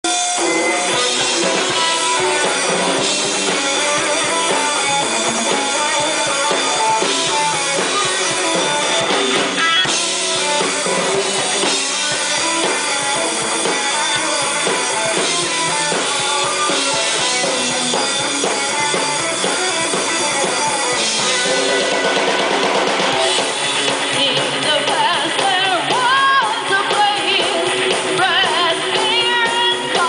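Heavy metal band playing live: electric guitars, bass guitar and drum kit, with singing.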